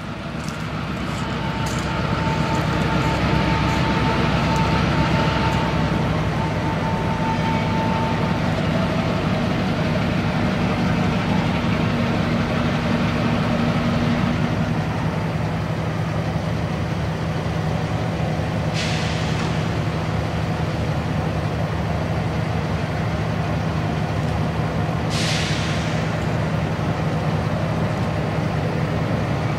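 EMD FL9 diesel locomotives approaching from a distance, their engines running with a steady low drone that swells over the first couple of seconds and then holds. Two short hisses come about six seconds apart in the second half.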